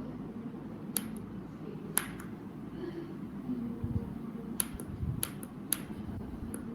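Push buttons on a homemade alarm clock being pressed to set the alarm time: several sharp clicks at uneven intervals over a low room hum.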